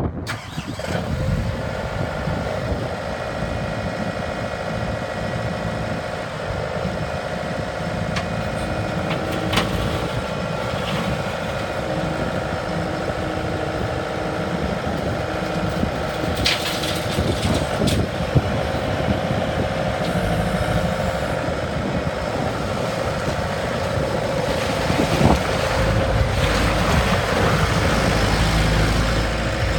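Bobcat S220 skid steer's diesel engine running steadily, with a few sharp knocks and clanks; the low rumble grows louder about 26 seconds in.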